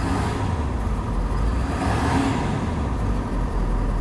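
Ford F-350 Super Duty pickup engine given a light rev above idle, heard from inside the cab.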